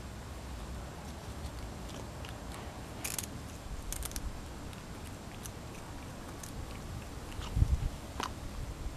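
Persian cat chewing and crunching small pieces of food, with short crunches scattered through and two sharper ones a few seconds in. A single low thump near the end is the loudest sound.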